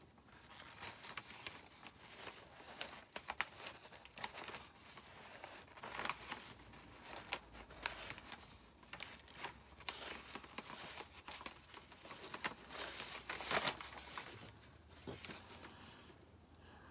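Decoupage paper crinkling and tearing as it is pulled apart by hand along a line wetted with a water brush pen, in irregular rustles and small tears, the loudest a little past two-thirds of the way through.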